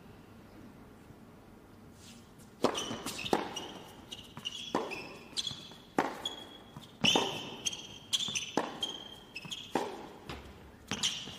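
Tennis rally on an indoor hard court: sharp racket strikes and ball bounces about every half second, starting a little over two seconds in with the serve, each with a short hall echo, and sneaker squeaks on the court between them.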